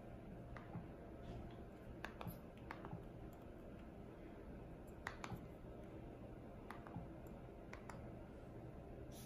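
Button clicks of a Xiaomi projector remote control being pressed, about a dozen soft clicks spaced irregularly, several in quick pairs, over a low steady hum.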